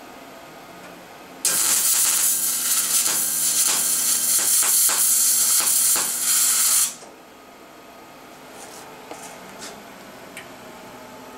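Wire-feed (MIG/MAG) welding arc crackling and hissing steadily in one burn of about five and a half seconds, starting and stopping abruptly, while plug-welding through 5–6 mm holes in 0.6–0.8 mm sheet steel.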